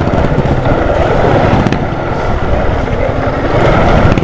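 Small motorcycle engine running steadily while riding, with wind on the microphone.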